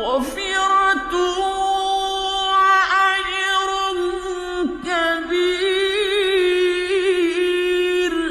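A man's voice chanting Quran recitation in a slow, melodic style, holding long drawn-out notes with ornamented turns and a trembling vibrato, in a few phrases. The voice breaks off near the end and an echo of the hall's reverb fades after it.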